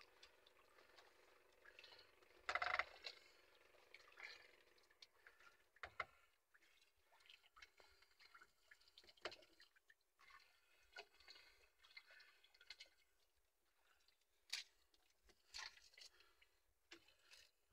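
Near silence with faint, scattered rustles and soft drips from a wet nylon gill net being handled as fish are picked out of it; the most noticeable rustles come about two and a half seconds in and around six seconds.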